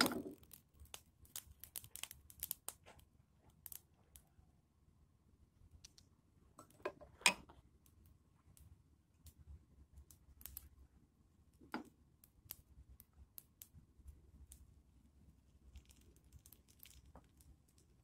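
Semolina baghrir batter poured into a hot nonstick frying pan right at the start, then faint scattered clicks and crackles as the pancake sits cooking, with a couple of louder clicks about midway.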